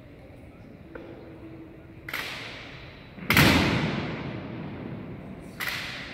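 Ceremonial honor-guard drill: three sharp, heavy strikes a little over a second apart, the middle one loudest, each echoing in a large hall.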